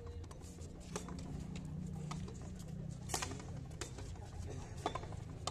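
Frontón handball rally: sharp smacks of a small ball struck by gloved hands and rebounding off the concrete wall, about five over a few seconds, over a steady low background rumble.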